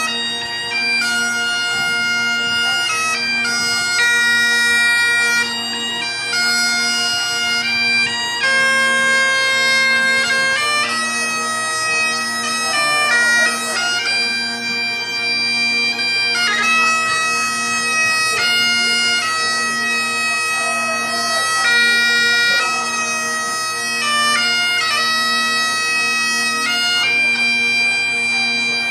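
Bagpipe played solo: a melody of long held notes over its steady, unbroken drones.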